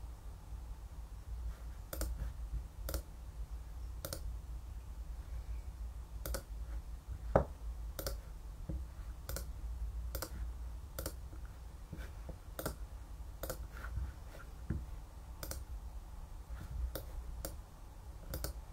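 Faint, sharp clicks at irregular intervals, roughly one a second, the loudest about seven seconds in, over a low steady hum.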